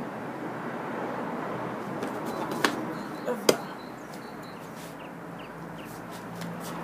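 Two sharp knocks about a second apart: a large plastic chess piece being handled and set down on a roll-up chess mat, over a steady background hiss. Faint bird chirps near the end.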